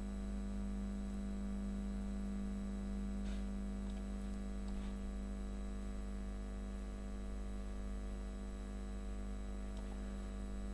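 Steady electrical mains hum on the recording: a strong low tone with a stack of evenly spaced higher tones, unchanging throughout.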